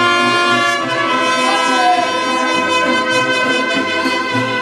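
Mariachi band playing a song's introduction: trumpets lead with long held notes over violins and guitars.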